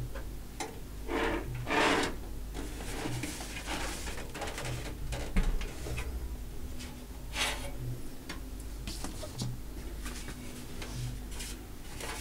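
Handling noise from a steel desktop PC case and its mesh dust filter: rustling, scraping and light knocks of the metal panel and filter, with one sharper knock about five seconds in. A faint low hum and soft low pulses about every second and a half sit underneath.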